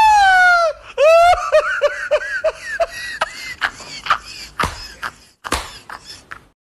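A long high-pitched cry that sags in pitch, then laughter: a quick run of short 'ha' syllables, about five a second, falling away. Scattered clicks and knocks follow, and the sound stops shortly before the end.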